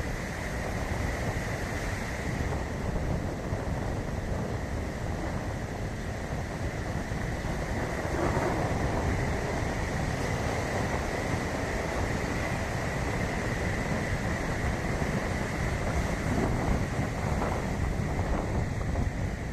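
Arabian Sea surf washing steadily onto a beach, with wind buffeting the microphone as a low rumble. The waves swell louder about eight seconds in.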